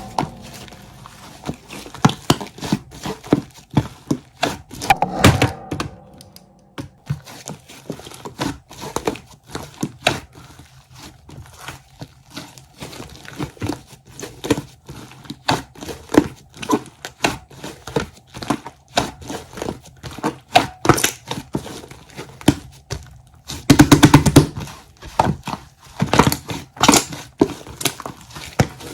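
Slime being pressed, poked and stretched by hand: a steady stream of small sticky clicks and crackles, with louder stretches about five seconds in and again near the end.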